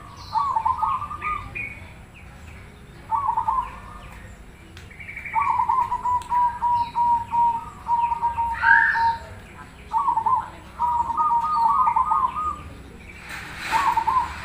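Zebra dove (perkutut) cooing in repeated gurgling phrases, with one long run of short, evenly spaced notes in the middle. Faint higher chirps from other birds sound in between, and a brief burst of noise comes near the end.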